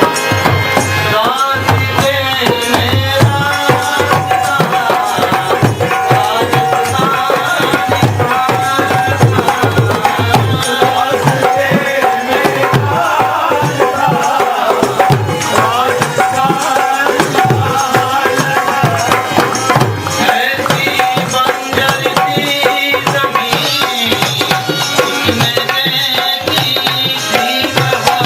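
Devotional Hindi bhajan music: tabla drumming under a wavering melody line.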